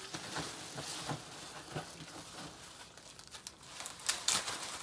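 Card decks being handled and sorted: crinkling, rustling handling noise with scattered light clicks, and a cluster of louder clicks near the end.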